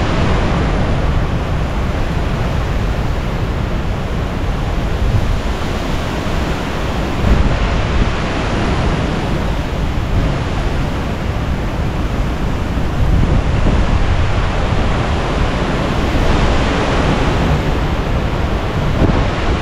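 Hurricane-force wind blowing hard in a hurricane's eye wall, a dense rushing noise that surges and eases in gusts. It buffets the microphone with a heavy low rumble.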